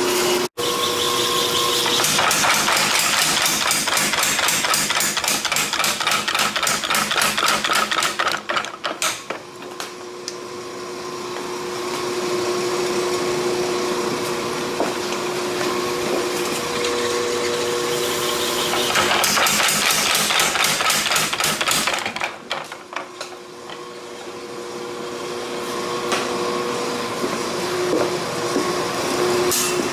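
Rapid runs of hammer blows on a hot, forge-welded steel billet, in two long bouts with a steady hum in the lull between them.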